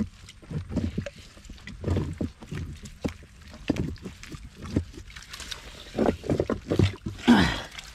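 Water sloshing and splashing in irregular bursts as rocks are shifted by hand in shallow water to open a crab burrow, with the loudest splash shortly before the end.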